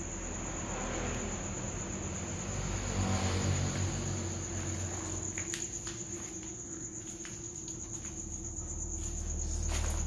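Crickets trilling steadily in a high, unbroken pulsing chirr, with low handling rumble and a few light clicks about halfway through and near the end.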